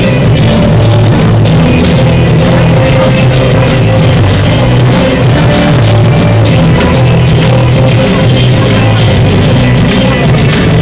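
Loud rock-style dance music with a drum kit, heard over a dance hall's sound, recorded overloaded and of poor quality.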